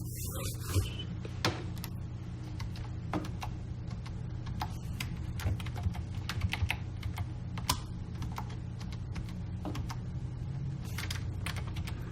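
Irregular clicks and taps of a computer keyboard and mouse being worked, with a busier run of clicks around the middle, over a steady low hum.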